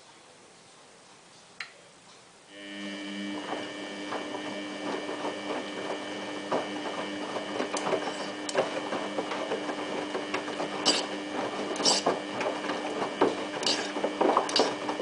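Samsung WF8804RPA front-loading washing machine starting a wash: about two and a half seconds in, the drum motor starts with a steady whine, under a constant patter of water and wet clothes splashing in the tumbling drum. It stops near the end.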